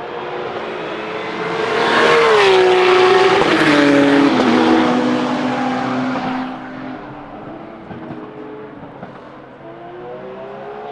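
Porsche 911 Supercup race car's flat-six engine passing at speed. It gets loud about two seconds in, its pitch drops in steps as it goes by, and it fades away. Another car's engine is faintly heard rising in pitch near the end.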